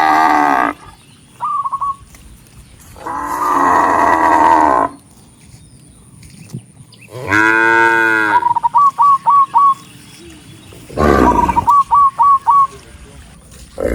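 Cattle mooing repeatedly, long calls a few seconds apart. Between the moos a bird calls in three quick runs of short repeated notes.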